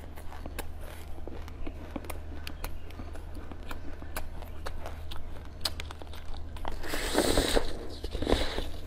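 Close-miked eating and food-handling sounds: scattered small clicks and taps, then a louder crinkly, crackling burst about seven seconds in and another shortly before the end. A steady low hum sits underneath.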